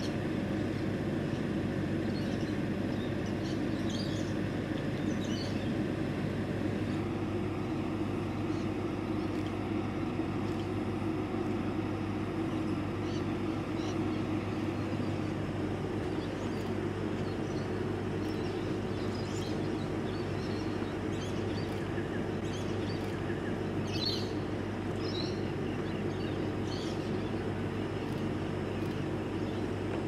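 A vehicle engine idling steadily, a low hum made of several constant tones. Short, high bird chirps come on top of it now and then, most of them in the last third.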